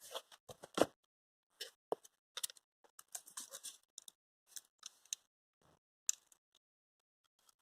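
Packaging being handled and opened by hand: irregular short clicks and brief rustling scrapes, the loudest knock a little under a second in.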